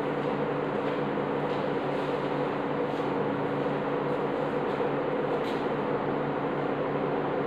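Steady mechanical hum of a room fan running, with a few faint marker strokes on a whiteboard.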